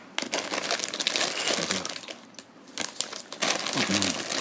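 Crinkly foil snack packets of Japanese rice crackers rustling and crackling as they are handled and set down, with a quieter pause about halfway through.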